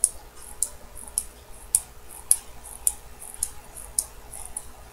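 Poljot 3133 chronograph movement being hand-wound: the click snaps over the ratchet wheel with a sharp, high click about every half second and fainter clicks between, the sign that the repaired click is catching and the mainspring is winding up.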